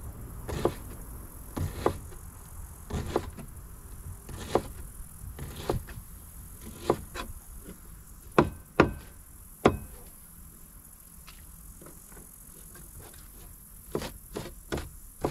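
Kitchen knife chopping onion on a plastic cutting board: sharp knocks of the blade hitting the board, about one a second, then a pause of a few seconds and a quick run of four chops near the end.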